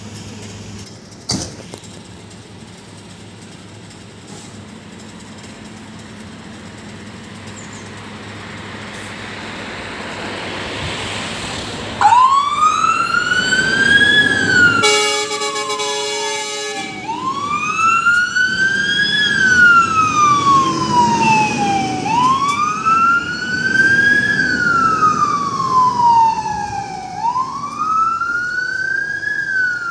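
A fire engine's diesel engine runs and grows louder as the truck pulls away. About twelve seconds in, its siren starts: a wail that climbs in pitch for about two seconds and falls for about three, repeating. A horn blast of about two seconds comes soon after the siren starts.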